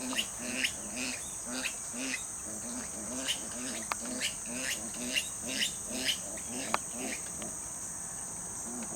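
Steady high-pitched insect chorus, crickets, with a regular series of short crunches about two a second: footsteps walking through dry leaf litter.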